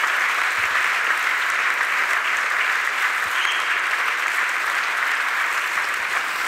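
A large audience applauding steadily in a hall.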